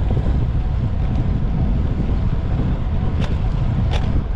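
Wind buffeting the microphone of a camera on a bicycle moving at about 36–37 km/h: a loud, steady low rumble. Two short clicks come about three and four seconds in.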